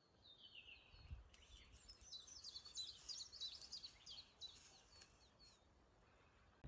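A small songbird singing faintly: a short falling note, then a fast, twittering run of high chirps that starts about a second in and dies away near the end.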